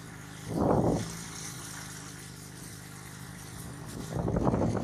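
Motorcycle engine running steadily while riding, with two louder bursts of rushing noise, one about half a second in and another near the end.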